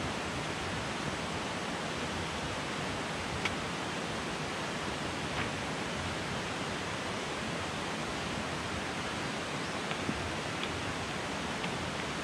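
Steady rush of a mountain stream flowing beside the road, with a few faint clicks.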